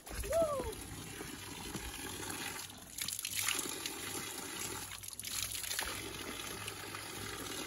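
Spring water running steadily from a stone spout and splashing into a pit below, with a short vocal sound less than a second in.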